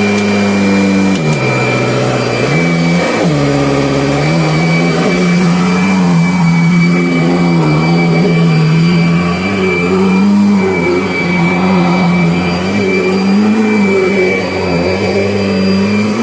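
2011 Kirby Sentria upright vacuum running, a steady motor hum with a thin high fan whine over it. The hum's pitch sags about a second and a half in, comes back up around three seconds, then holds with slight wavering.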